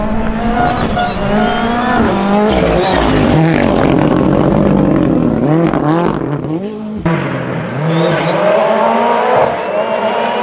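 Rally car engines on a gravel stage, revving hard with repeated climbs and drops in pitch as the cars shift up and down through the gears. About seven seconds in, the sound changes abruptly to another passage of engine noise.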